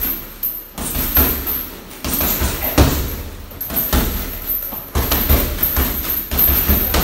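Gloved punches landing on a hanging heavy punching bag in short combinations of two or three, a thud with each blow.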